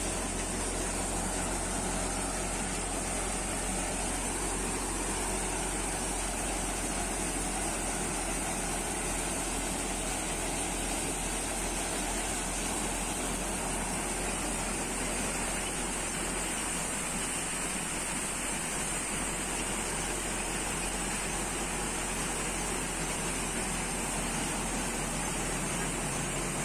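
Bansal multicrop thresher running steadily under load while threshing crop, driven by a Mahindra Arjun 555 DI tractor. It makes a continuous mechanical rumble and rush with a steady high hiss over it.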